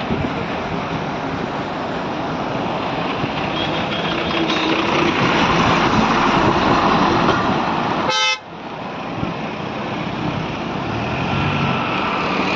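Heavy road traffic of lorries, a bus and cars, with engine and tyre noise and vehicle horns tooting. A short sharp pitched blast comes just after eight seconds, followed by a sudden dip in the noise.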